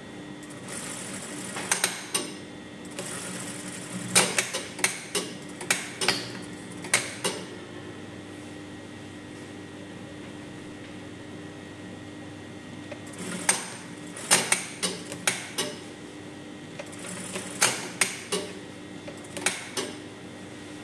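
Brother industrial single-needle sewing machine stitching in short stop-start spells, four runs of sharp mechanical clicks a few per second, over a steady motor hum.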